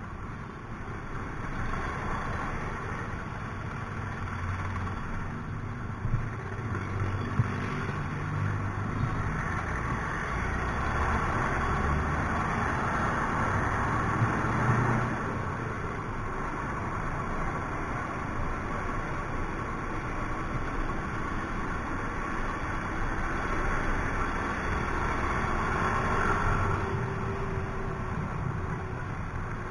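Yamaha Mio i 125 scooter's single-cylinder engine running while riding in slow city traffic, its note rising and falling with the throttle, under steady wind and road rush. A few short sharp clicks come in the first half.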